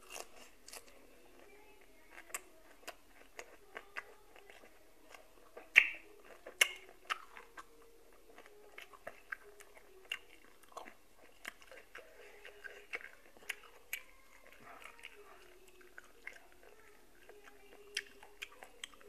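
A person chewing boiled golden apple snail meat: soft wet mouth clicks and smacks at an irregular pace, two sharper ones about six seconds in.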